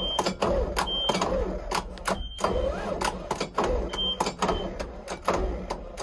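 A failed start attempt on a Cat C7 inline-six diesel, heard as rapid, irregular clicking about four times a second over a pulsing low rumble. The battery is too dead to start the engine. A few short high beeps sound through it.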